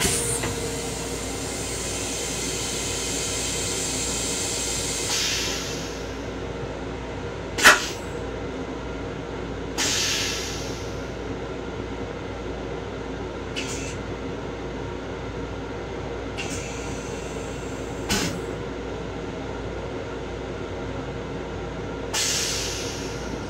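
Train-car toilet flushing: a hiss of rinse water spraying into the stainless steel bowl for about five seconds, then a sharp clack, the loudest sound. Several shorter hisses follow a few seconds apart, over the steady hum of the railcar.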